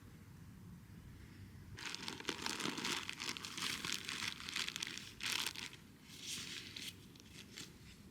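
Close crinkling and rustling in irregular bursts, starting about two seconds in and lasting about six seconds.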